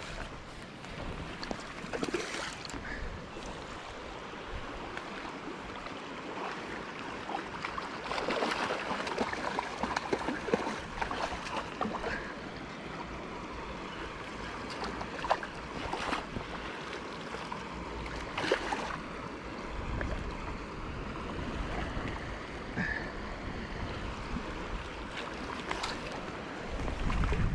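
Shallow river running over stones, with splashes from a hooked trout thrashing in the water near the bank. Low gusts of wind hit the microphone now and then, the strongest near the end.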